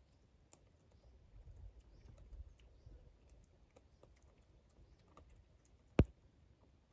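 A piglet eating rice off a leaf: faint, irregular chewing and smacking clicks, with one much louder sharp click about six seconds in.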